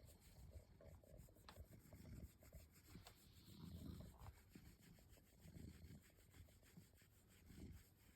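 Faint rubbing of a hand scratching a cat's fur, coming in low swells every second or two.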